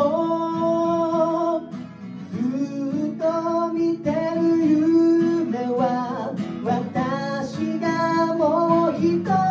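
Two steel-string acoustic guitars strummed through the chords F, C, F and E7, with men singing a Japanese pop melody over them. The singing breaks off briefly about two seconds in between phrases.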